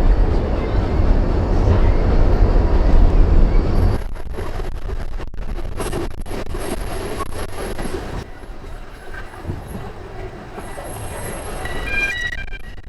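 Isle of Man Steam Railway train on the move: a loud low rumble for the first four seconds, then quieter, with sharp clicks from the wheels over the track and a thin high wheel squeal. Short high squealing tones come in near the end.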